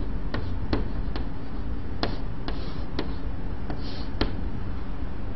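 Chalk writing on a chalkboard: about eight sharp, irregular taps as the chalk strikes the board, with a couple of short scratchy strokes, over a steady low hum.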